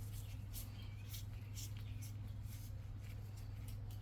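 Scattered light clicks and scrapes of small tools and carburetor parts being handled, over a steady low hum.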